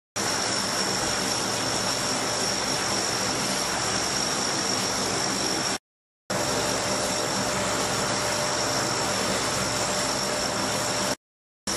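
Lockheed C-130 Hercules turboprop engines running with the propellers turning: a steady engine drone with a high whine over it. The sound drops out to silence for about half a second twice, about six seconds in and near the end.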